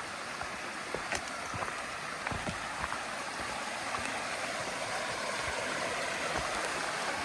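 Rushing water of Rocky Brook, a steady hiss that slowly grows louder, with a few faint clicks.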